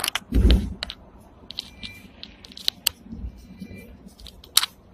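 Seventh-generation Hong Kong double-decker tram running on its tracks: scattered clicks and rattles of the body and fittings, with a heavy low thump about half a second in and a sharp click near the end.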